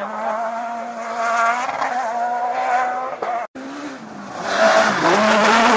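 Rally cars on a gravel special stage running at high revs: one car's engine holds a steady note as it draws away. Then another car comes through the bend close by, its engine note dipping and rising with gravel and tyre noise, loudest about five seconds in.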